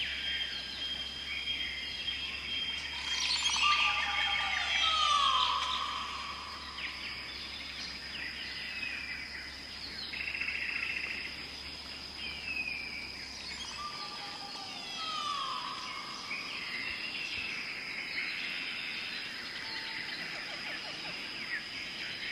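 Wild birds singing and calling: many short chirps and whistles, with one song made of sliding, falling notes that comes twice, about ten seconds apart. A steady high-pitched tone runs underneath.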